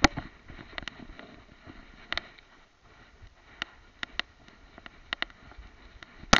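Handling noise of a camera strapped to a dog's head as the dog moves through long grass and brush: a low rustle with irregular sharp clicks from twigs, grass and fur rubbing on the camera, and a louder cluster of clicks near the end.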